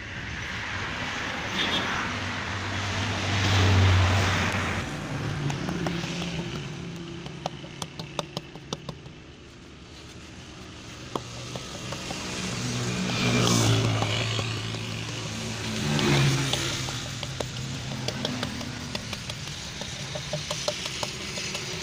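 Engine noise of passing motor vehicles, swelling and fading about three times, with scattered small sharp clicks.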